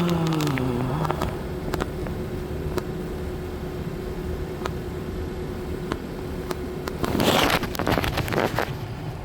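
Steady low hum like a running vehicle, with a faint steady tone and scattered light clicks. A pitched sound falls away during the first second, and there is a louder noisy stretch about seven seconds in.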